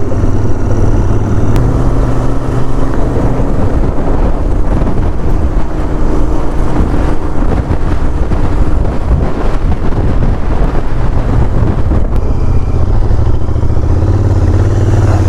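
Royal Enfield 650 parallel-twin motorcycle riding at steady speed, its engine rumble mixed with loud, gusting wind rushing over the microphone.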